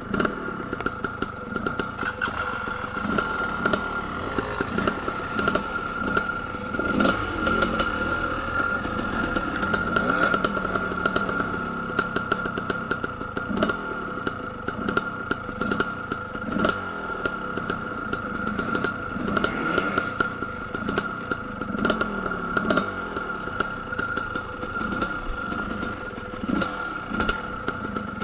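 Two-stroke dirt bike engines running, with a steady idle and repeated revs that rise and fall, plus a rattling clatter. The closest engine is a Kawasaki KDX220 ticking over while stopped on a rocky trail.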